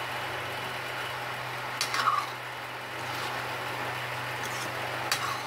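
Metal spoon scraping and knocking against a metal kadhai while stirring macaroni: a short ringing scrape about two seconds in and a sharp clink near the end. Under it runs a steady low hum.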